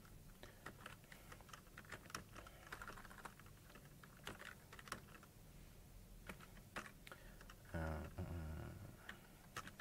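Computer keyboard typing: faint, irregular keystrokes as a terminal command is entered. A brief low vocal murmur comes about eight seconds in.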